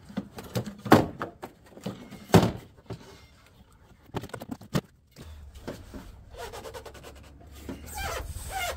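Stock plastic air intake duct and airbox lid being worked loose and lifted out by hand: scattered knocks and rubbing, with two louder clacks about one and two and a half seconds in. A steady low rumble comes in about halfway through.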